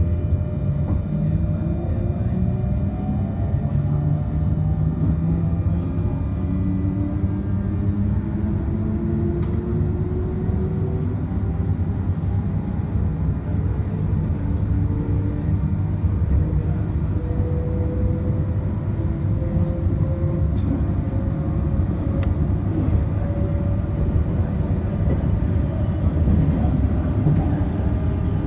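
RER D electric commuter train heard from inside the passenger car as it accelerates out of a station: a steady rumble of running gear under a whine of several tones from the electric traction equipment, climbing slowly in pitch as the train picks up speed.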